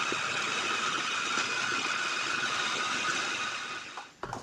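Tefal electric chopper running steadily, its blades blending chickpeas into hummus, then winding down about four seconds in, followed by two short knocks near the end.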